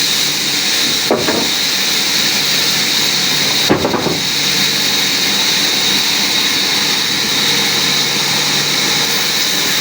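Power wood saw running steadily with a constant high whine, with two short knocks, about a second in and just before four seconds.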